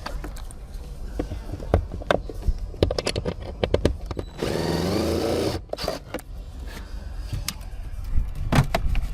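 Cordless drill-driver running for about a second and a half, undoing a screw from the dashboard trim. Around it, scattered clicks and knocks of tools and plastic trim being handled.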